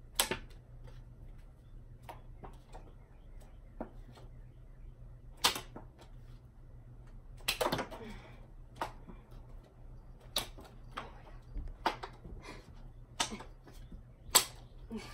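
Playing cards being thrown one at a time: a string of short, sharp snaps and slaps, about eight of them at uneven intervals and most bunched toward the end, as cards flick off the fingers and strike their target or the furniture.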